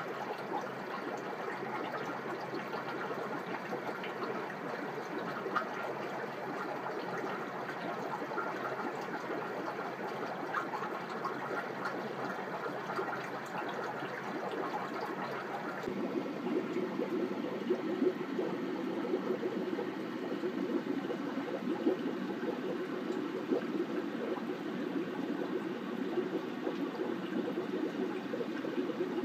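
Aquarium sponge filters bubbling, with water trickling steadily and faint small pops. About halfway through the sound changes suddenly to a fuller, lower bubbling.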